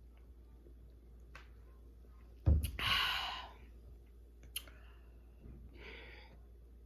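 A woman's loud, breathy burst of breath from the mouth about two and a half seconds in, lasting about a second. A faint click follows, then a softer breath near the end.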